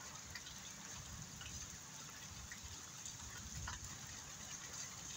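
Steady rain falling on wet, muddy ground, an even hiss with scattered ticks of single drops.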